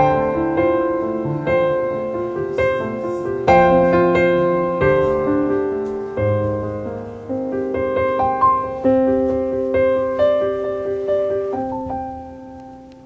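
Background piano music, fading out near the end.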